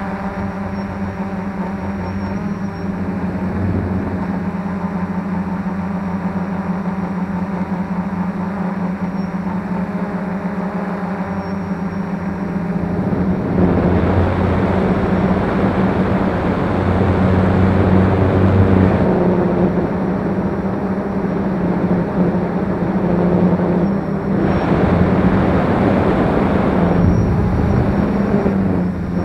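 F450 quadcopter's motors and propellers running, a steady hum with overtones. It gets louder and rougher about halfway through, eases a little, then swells again near the end.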